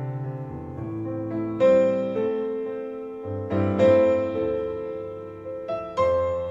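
Music: a solo piano playing slow chords, three struck firmly about two seconds apart, each left to ring and fade, played back over hi-fi loudspeakers.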